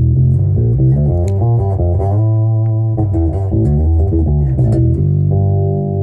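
Zoot Wal-a-Like electric bass on both pickups, played through a Gallien-Krueger amp into a 1x12 cabinet: a quick run of plucked notes, then a note left ringing from about five seconds in.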